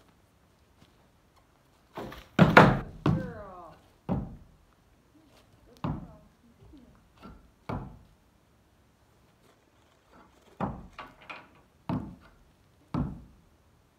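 A pony's hooves knocking on a wooden loading ramp as she steps up toward a pickup truck's bed: a dozen or so irregular hollow thunks, the loudest cluster about two and a half seconds in and another near eleven seconds.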